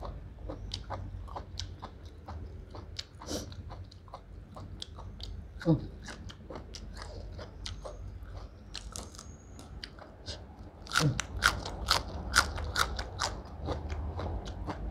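Close-up chewing and crunching of raw beef tripe and fresh lettuce, a steady run of small wet crackles. The crunching grows louder for a couple of seconds around eleven seconds in.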